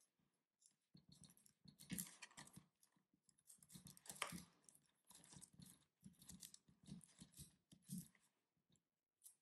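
Faint, irregular scratching and small clicks of a cuticle stick being rubbed and pressed along a gel nail strip on a fingernail, smoothing it down at the nail edge.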